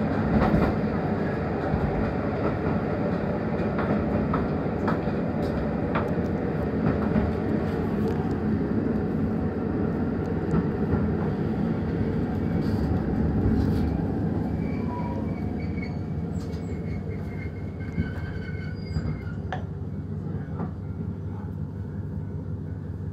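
Running noise of a JR KiHa 150 diesel railcar heard from the driver's cab, with wheels clicking over rail joints. It grows quieter over the second half as the railcar slows into a station, with faint brake squeals near the end.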